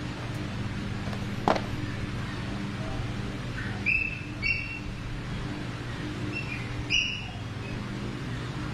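Steady low hum with a sharp click about a second and a half in, and three short high-pitched chirps later on.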